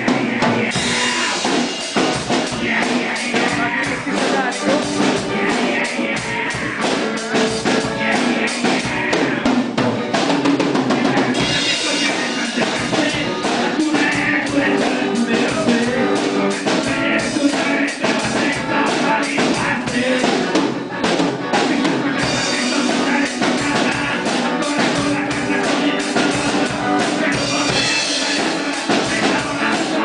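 A live rock band playing: an electric guitar over a drum kit keeping a steady beat, with bass drum and snare hits.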